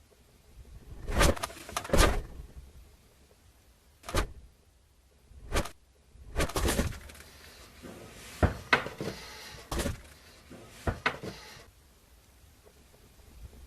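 An irregular series of short knocks, thumps and clatters, about ten in all, some close together in pairs, like a door and objects being handled.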